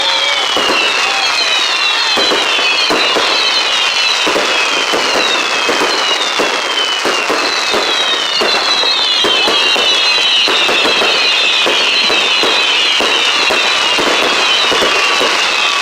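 Fireworks going off in a dense run of bangs and crackles, with many overlapping whistles that each fall in pitch.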